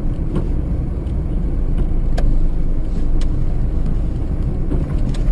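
Car driving, heard from inside the cabin through a dashcam: a steady low rumble of road and engine noise, with a few faint clicks.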